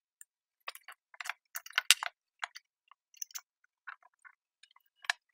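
Metal parts of a portable hydraulic AC-hose crimper being handled: an irregular run of small clicks, clinks and knocks, the loudest about two seconds in and another shortly before the end.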